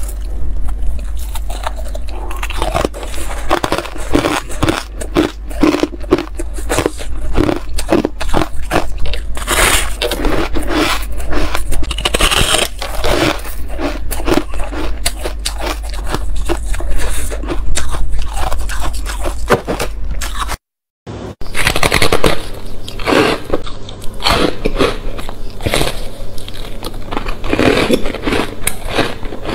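Close-up biting and chewing of frosty white ice: many loud, fast crunches one after another. The crunching breaks off for a moment about two-thirds of the way through, then goes on.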